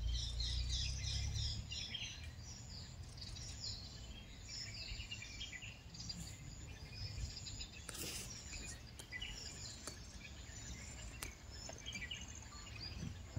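Birds chirping and calling in the bush, many short repeated notes and quick falling chirps, busiest in the first half. A low rumble sounds under them for about the first second and a half, and there is a single sharp click about eight seconds in.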